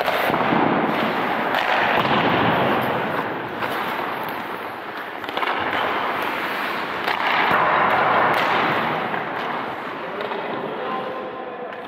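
Ice-hockey practice sounds: skates scraping the ice in long swelling rushes, with faint sharp clacks of sticks and pucks among them.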